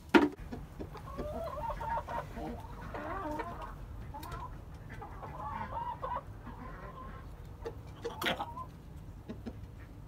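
Chickens clucking in a busy, wavering run of calls. A sharp knock comes right at the start and another about eight seconds in.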